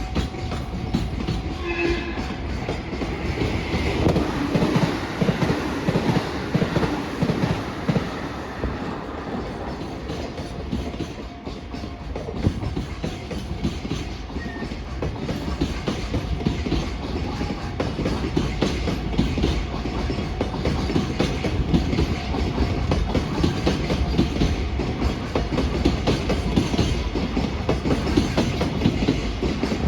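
Container freight train passing at speed, its wheels clicking over the rail joints in a quick continuous run over a steady rumble, growing a little louder toward the end.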